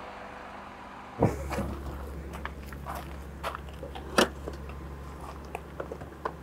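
Rear doors of an SUV opened, then scattered knocks, clicks and clunks as people rummage in the back seat. There is a sharp clunk about a second in and a louder knock about four seconds in.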